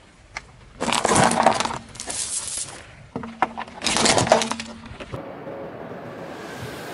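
Car tyre rolling over and crushing a string of shiny beads and then a small plastic toy: two bursts of cracking and crunching, each lasting a second or two, followed by a quieter steady rumble.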